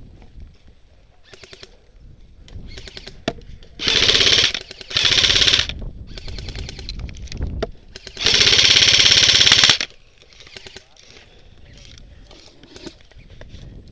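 Airsoft electric gun firing full-auto: two short bursts close together, then a longer burst of about a second and a half a few seconds later, with scattered faint pops and clicks between them.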